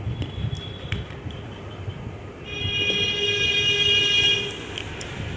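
A steady horn-like tone of several pitches sounds for about two seconds, starting about two and a half seconds in, over a low steady background rumble. A few faint clicks come in the first second or so.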